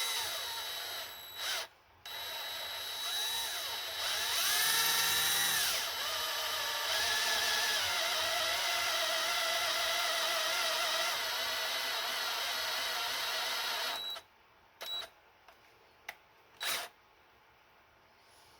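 Handheld power drill boring out a broken bolt in an engine block with a reverse drill bit. It stops briefly near the start and speeds up and slows down a little after that. It then runs steadily for about ten seconds, stops, and is given a few short trigger blips near the end.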